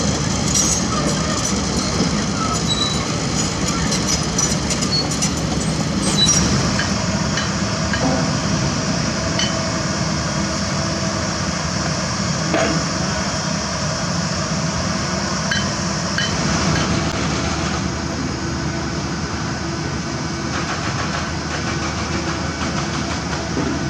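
Heavy earthmoving machinery at work: a steady diesel engine drone with scattered metallic clinks and knocks.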